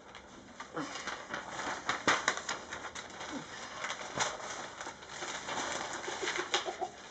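Sheets of printer paper rustling and crackling in a run of short, sharp bursts as they are handled and turned over.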